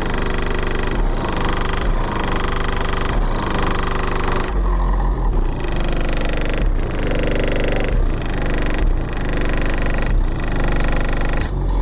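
Hip-hop instrumental beat with a deep, pulsing bass under sustained synth chords that change about once a second; no rapping.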